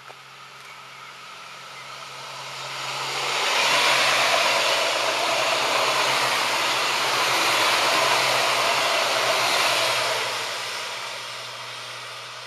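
Alstom Coradia LINT (class 648) diesel multiple unit running past: its sound swells over about two seconds, stays loud for about six, then fades away, over a steady low hum.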